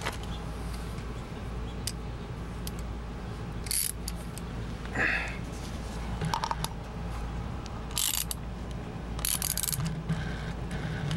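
Metal oil filter housing of a Toyota 2GR-FE cartridge oil filter being handled: scattered short clicks, knocks and scrapes of metal parts, a few seconds apart, over a steady low rumble.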